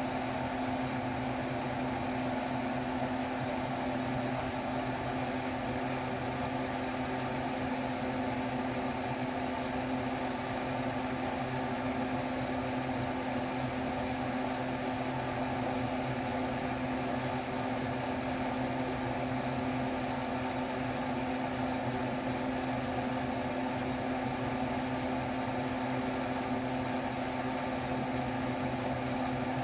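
Steady electric fan or motor hum: a constant low drone with an even hiss, unchanging throughout.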